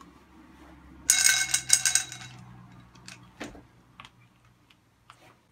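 Eating a mouthful of Warheads sour hard candy: a loud crackling rustle lasting about a second, starting about a second in, then a few scattered small clicks.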